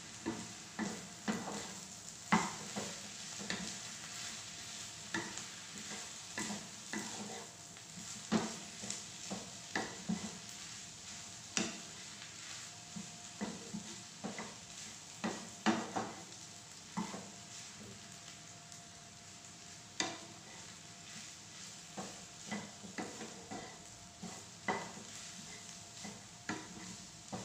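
Instant pancit canton noodles and vegetables sizzling in a frying pan as they are stir-fried with their sauce. A wooden spatula stirs and tosses them, knocking and scraping against the pan about once or twice a second at an irregular pace.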